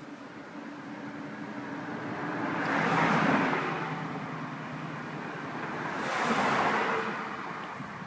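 Two cars passing on a road, one about three seconds in and another about six and a half seconds in, each swelling and fading away.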